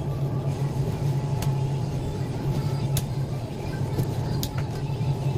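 Pork neck being cut in a butcher shop over a steady low motor hum, with a sharp click or knock about every second and a half.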